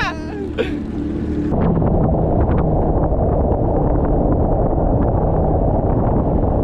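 Jet ski engine running steadily at speed, heard through heavy wind rumble on the microphone, setting in about a second and a half in.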